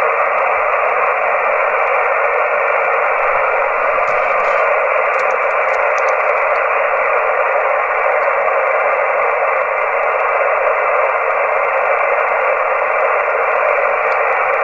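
CB transceiver tuned to 27.565 MHz on upper sideband, its speaker giving a steady, loud hiss of band static. The hiss is held in a narrow voice-width band, and no station is coming through.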